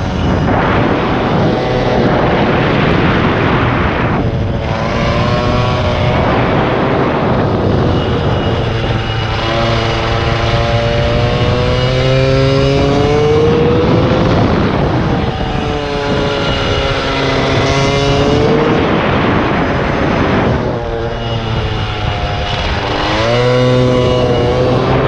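Air-cooled 70 cc Polini minimotard engine running hard on track. Its pitch climbs in several long rises under throttle and falls back between them as the rider shifts or eases off for the corners.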